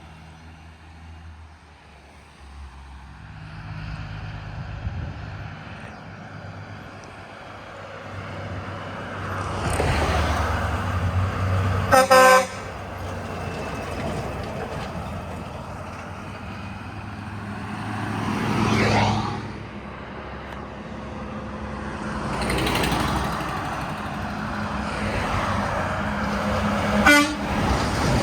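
Trucks passing on a road one after another, with a short, loud horn blast about twelve seconds in and a second brief honk near the end.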